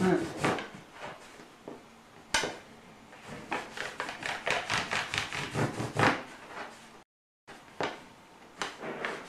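A thin iron rod (ferretto) being rolled under the palms on a wooden pastry board to shape fusilli: a run of light clicks and taps as the rod rolls and knocks on the wood, with one sharper knock about two and a half seconds in. The sound cuts out completely for a moment about seven seconds in.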